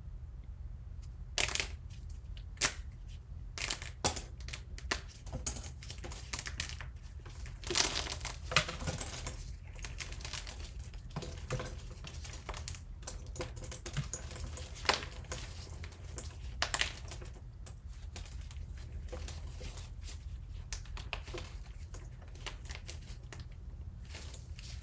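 Close-up crunching and crinkling as brittle objects are crushed and broken, with irregular crackles and sharp snaps that thin out in the last third. A steady low hum runs underneath.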